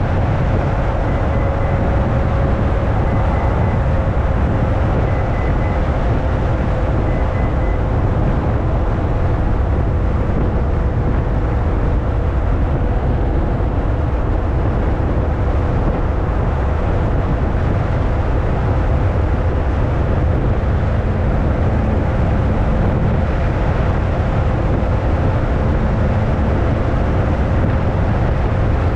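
Ferrari California's 4.3-litre V8 cruising steadily at highway speed: a constant low drone with an even hum, mixed with tyre and wind noise.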